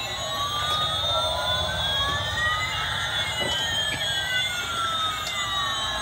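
Electronic siren-like sound effects from toy airliners' sound chips: several tones slowly rising and falling and crossing each other, over a steady low hum.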